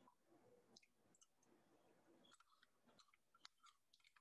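Near silence, with faint scattered clicks of a metal spoon stirring mashed avocado and ice cubes in a ceramic bowl.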